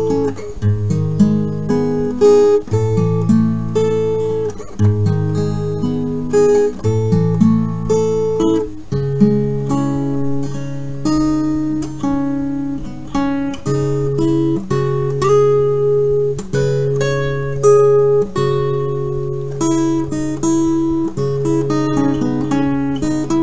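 Background acoustic guitar music. Plucked chords repeat about every two seconds at first, then after about nine seconds a held low note carries on under a picked melody.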